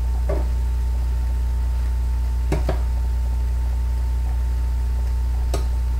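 A steady low hum, with a few short clicks of a utensil against the pan as the stir-fry is stirred: one near the start, a quick pair about halfway, and one near the end.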